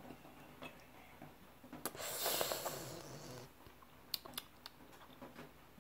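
A plastic squeeze bottle of mayonnaise being squeezed over food: a sharp click about two seconds in, then a sputtering, hissing squirt lasting about a second and a half, followed by a few light clicks.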